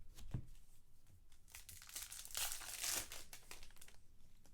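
Trading-card pack wrapper crinkling and tearing as it is ripped open, loudest about two to three seconds in.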